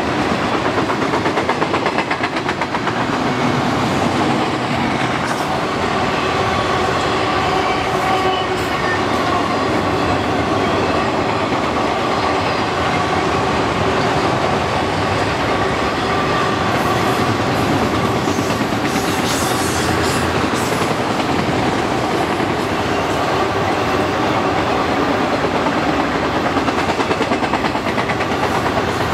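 Freight train cars, first tank cars and then autorack cars, rolling steadily past as steel wheels run on the rails.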